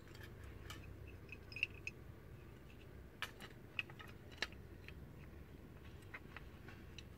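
Faint, scattered clicks and light metallic clinks of drum-brake parts, shoes, springs and the adjuster mechanism, being picked up and fitted together by hand, about half a dozen spread irregularly.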